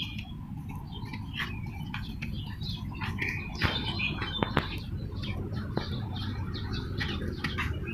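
Small birds chirping in many short, quick calls, over a steady low background rumble.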